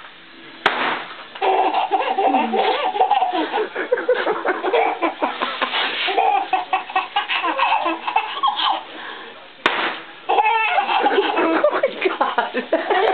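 A seven-month-old baby laughing in long belly laughs. Each fit follows a sharp crack, one just under a second in and another about ten seconds in.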